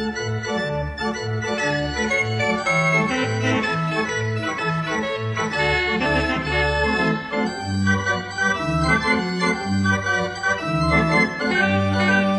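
Organ music: held chords over a bass line that moves from note to note every half second or so.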